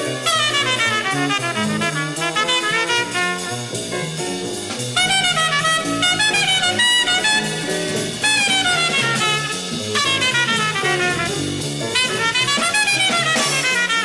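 Bebop jazz played by a septet of two tenor saxophones, two trumpets, piano, bass and drums. A fast solo line runs up and down over steadily stepping bass notes and cymbal.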